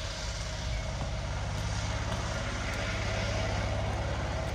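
A motor running steadily with a low, even hum that grows a little louder about three seconds in.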